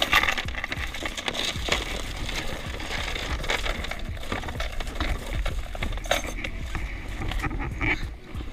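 Metal anchor chain and shackle clinking and rattling in irregular clinks as they are handled and stuffed into an anchor bag, over a steady low rumble of wind on the microphone.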